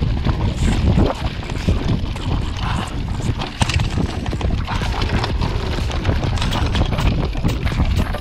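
Mountain bike riding fast down a rough dirt forest track: a heavy, continuous rumble of tyres and buffeting at the camera, with the bike rattling and clattering in quick irregular knocks over the bumps.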